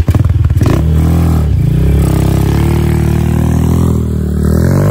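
ATV engine catching and revving, the revs dropping briefly about a second and a half in and climbing again near the end.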